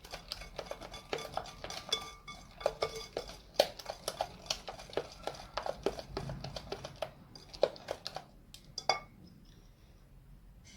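Eggs and icing sugar being beaten by hand in a bowl: a metal utensil clinks and taps rapidly and irregularly against the bowl, stopping about nine seconds in.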